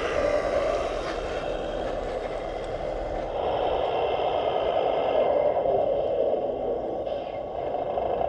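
Radio-controlled Scania 8x8 model truck driving slowly on asphalt: a steady whirring of its drive train and tyres that gets a little louder about three seconds in.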